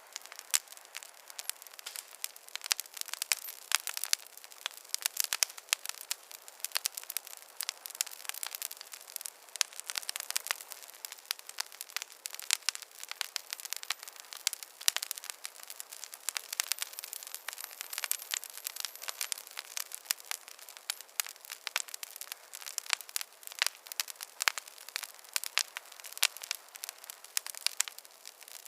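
Wood fire crackling in a fireplace: dense, irregular small pops and snaps, with no low rumble.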